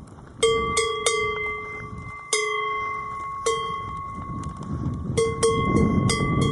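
A large cowbell on a walking cow's collar clanking with the animal's steps: about eight irregular strikes, some in quick pairs, each ringing on with a clear metallic tone. A low rumbling noise rises underneath toward the end.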